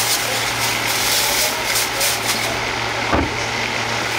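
Steady low hum of an idling engine under street noise, with a single knock about three seconds in.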